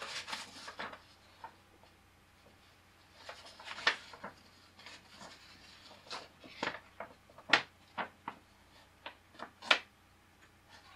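A sheet of paper handled and moved about by hand, giving a scattered series of short, sharp crackles and rustles.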